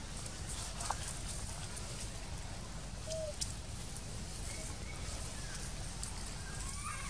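Outdoor forest ambience: a steady low rumble with a few faint, short chirping animal calls and a couple of sharp clicks.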